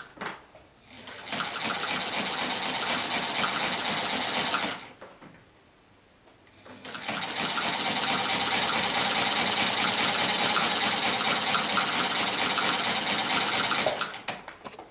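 Chaika-2 sewing machine running at speed and stitching through a strip of thick fabric, a fast, even clatter in two runs with a short pause between them. It is running with a newly fitted metal half-gear in place of a cracked nylon one.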